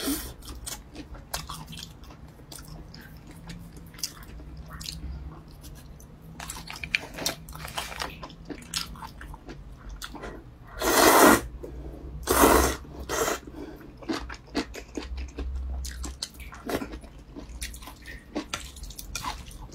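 Close-up mouth sounds of chewing grilled chicken skin, with many small wet clicks. About halfway through come two loud slurps of noodles from a bowl of soup, then more chewing.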